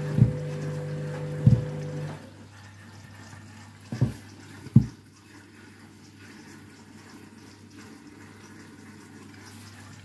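Candy front-loading washing machine, overloaded with about 8 kg in a 7 kg drum, during a rinse. A steady machine hum stops about two seconds in. Water sloshes in the drum with four dull thumps of the wet load.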